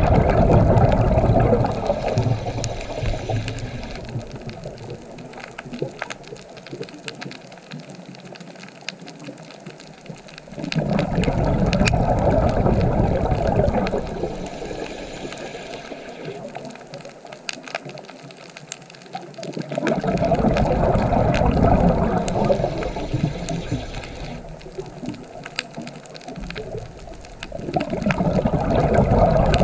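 Sea waves breaking and washing up the shore, one surge about every nine or ten seconds, each swelling quickly and slowly draining away.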